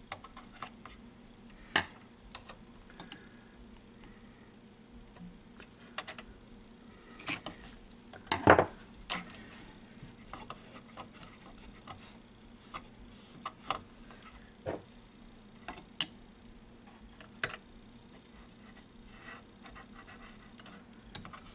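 A screwdriver and fingers scraping, tapping and clicking against the metal chassis and parts of a 1967 Teac A-4010S reel-to-reel transport while a capstan drive belt is poked into place. The sounds come as irregular clicks and short scrapes, with a louder knock about eight and a half seconds in.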